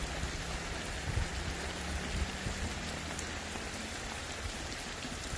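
Heavy rain falling steadily on bare earth.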